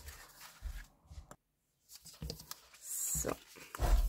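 A sheet of card being handled and folded by hand: light rustling and soft taps, with a brief total dropout a little over a second in, and a louder rustle followed by a low thump near the end.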